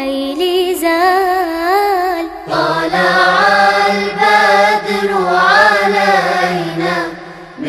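Devotional chant sung into a microphone, with gliding, held notes. First comes a high voice; about two and a half seconds in it cuts to a lower man's voice over more background noise.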